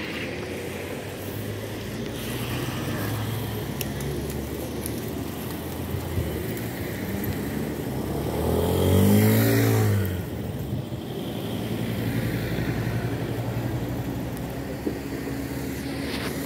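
Street traffic passing close: car engines going by, and about eight to ten seconds in a large motor scooter passes near, the loudest sound, its engine note rising and then falling as it goes by.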